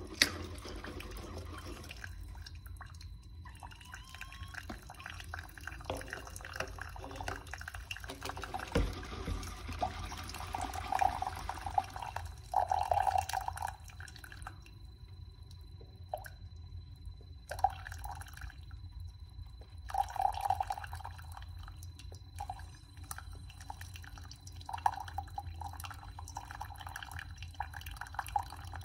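Single-serve coffee maker brewing: coffee dripping and gurgling into a cup in irregular spurts over a low steady hum.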